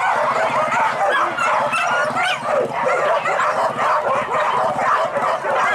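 A pack of boar-hunting dogs yelping and baying together, many overlapping high voices at once without a break.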